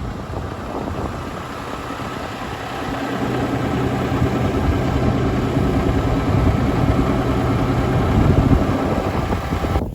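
Large diesel engine of farm harvest machinery running steadily, with a steady low drone that comes in about three seconds in and grows louder.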